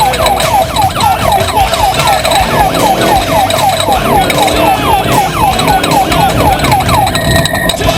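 Electronic siren in a fast yelp, a falling wail repeating about three to four times a second, over an off-road race truck's engine running; the siren stops shortly before the end.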